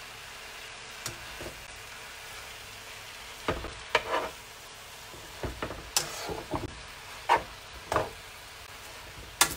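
Spinach sizzling in oil in a frying pan as it wilts, with irregular clicks and scrapes of metal tongs against the pan as the leaves are turned, starting a few seconds in.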